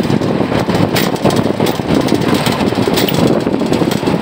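Cable-car lift moving along its overhead hauling cable: a loud, steady mechanical rumble with fast rattling.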